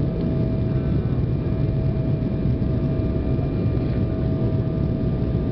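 Steady cabin noise inside an Embraer 190 jet on landing approach: a low rumble of airflow and its turbofan engines, with a thin steady whine over it.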